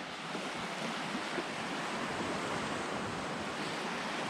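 Surf washing onto the shore in a steady hiss, with some wind buffeting the microphone.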